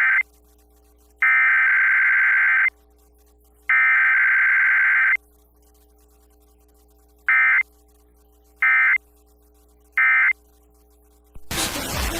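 Emergency Alert System SAME data bursts: the end of one long buzzing header burst, two more of about a second and a half each a second apart, then three short end-of-message bursts. Loud music with noise comes in near the end.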